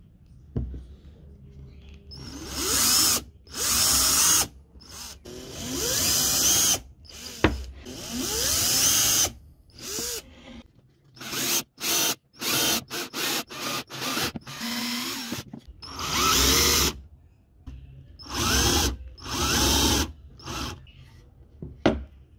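Parkside cordless drill-driver driving screws into a wooden batten, in repeated bursts of motor whine that rise in pitch as the trigger is squeezed. Midway there is a run of short, quick trigger pulses.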